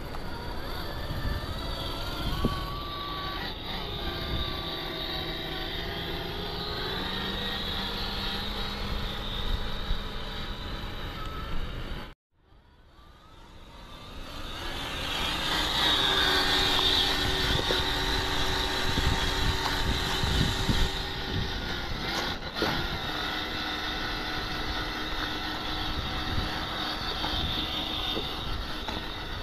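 Electric motor and gear drivetrain of a 1/7-scale RLAARLO MK-07 RC Jeep crawler whining as it works over rock, its pitch shifting with throttle and load, with scattered scrapes and knocks. The sound cuts out briefly near the middle and fades back in.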